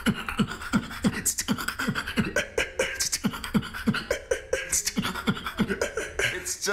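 A beatboxer performing a beat without using his lips, mouth held open by a cheek retractor. A steady low kick comes close to three times a second, with sharp hi-hat hisses and snares made as coughs between the kicks.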